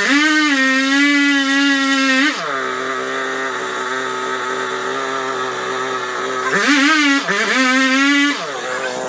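Gas chainsaw running at full throttle while cutting into the base of a tree trunk, then dropping to a steady idle about two seconds in. Near the end it revs up again for about two seconds and settles back to idle.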